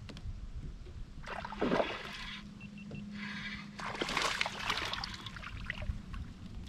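Hooked Suwannee bass splashing at the water's surface as it is reeled in beside a kayak: two short bursts of splashing, about a second and a half in and again around four seconds in.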